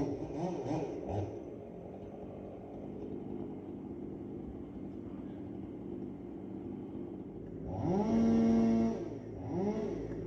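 Small engine of tree-removal equipment running low, then revving up and holding about eight seconds in, dropping and revving again near the end.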